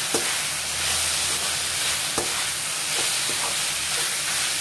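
Fried chicken pieces and chopped vegetables sizzling in a hot pan as a metal spatula stirs them, with a steady hiss and a few sharp knocks of the spatula against the pan.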